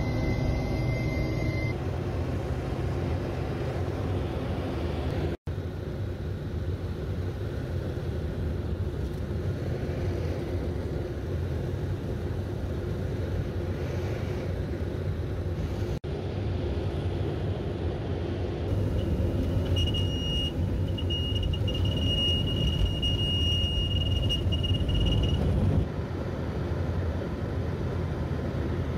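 Steady low drone of a firefighting airplane's engine and airflow, heard from on board, broken by two brief dropouts. In the second half a steady high tone sounds for about five seconds.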